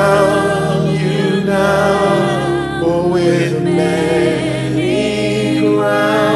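Gospel worship music: singing voices drawn out in long, wavering held notes over a steady sustained accompaniment.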